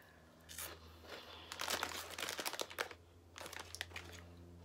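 Crunching on a peanut-flavoured snack chip while the plastic snack bag crinkles as it is handled, in irregular bursts.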